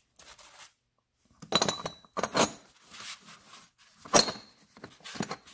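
Cast-iron pipe flanges, slick with linseed oil, being brushed with a toothbrush and shifted against one another: a run of short scrapes and clicks, with one sharp metal clink about four seconds in.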